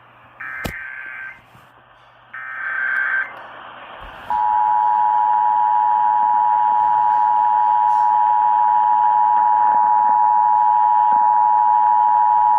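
Emergency Alert System test signals: two short, raspy SAME data-header bursts of about a second each, with a sharp click during the first of them, followed after a pause by the two-tone EAS attention signal (853 and 960 Hz together). The attention signal sounds steadily for about eight seconds and cuts off at the end, over a steady hiss.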